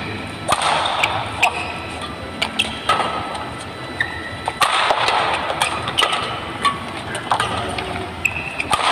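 Rackets striking a shuttlecock in a fast doubles badminton rally, with sharp hits coming at irregular intervals.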